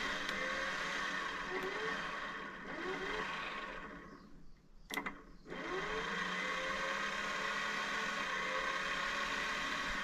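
NutriBullet 900 series blender motor running smoothly with a steady whine. About three seconds in it winds down, and a couple of clicks follow. It then spins back up with a rising whine and runs steadily again.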